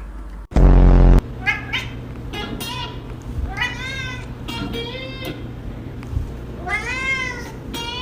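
A pet cat meowing again and again: a few short calls, then several drawn-out meows that rise and fall in pitch. About half a second in there is a short, very loud low buzzing burst.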